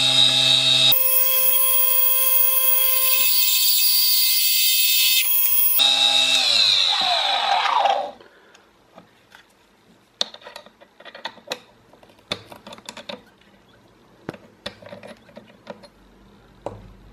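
Mini lathe's electric spindle motor running with a steady whine that shifts in pitch about a second in. About six seconds in it is switched off and spins down, the whine falling over about two seconds. Scattered small clicks and taps follow.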